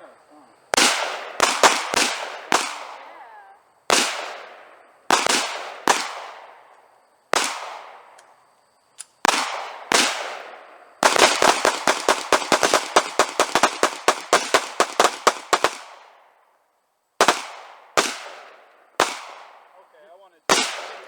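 Gunfire: single shots spaced roughly a second apart, then a rapid string of shots lasting about four seconds in the middle, then four more single shots near the end. Each shot cracks sharply and fades out over about a second.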